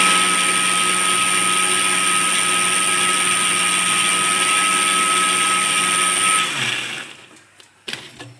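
Electric kitchen blender running at steady speed with a high whine, puréeing chopped onion with a little water to draw out its juice. About six and a half seconds in it is switched off and the motor spins down, and a light knock follows near the end.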